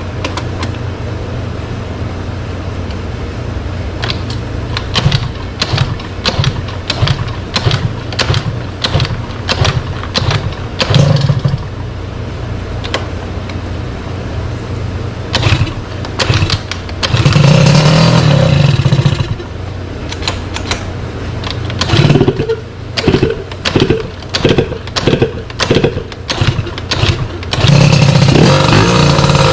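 Sym DD50 scooter's small two-stroke engine, a Polini Corsa Mini build, idling while the throttle is blipped in quick repeated stabs, then held open for a couple of seconds around the middle and again near the end.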